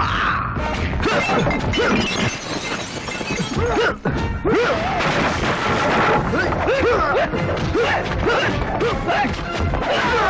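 Fight-scene soundtrack: dramatic background music over repeated punch and smash sound effects, with shouts and grunts from the fighters.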